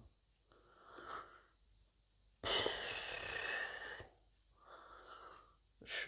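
A person's breathing: a faint breath about a second in, a louder, wheezy breath out lasting under two seconds about two and a half seconds in, then another faint breath.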